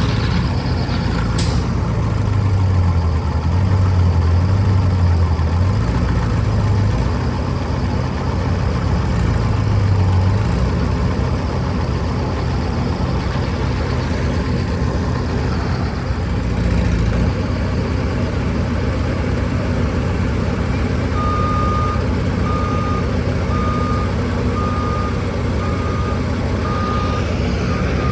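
Skid steer's diesel engine working under varying load, its pitch rising and falling in the first few seconds. About two-thirds of the way through, a backup alarm starts beeping about once a second as the machine reverses.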